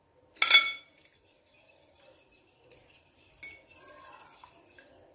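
A metal fork clinks sharply against a glass bowl about half a second in, with a brief ring. It then stirs quietly through beaten egg and sugar, ticking lightly against the glass once more near the middle.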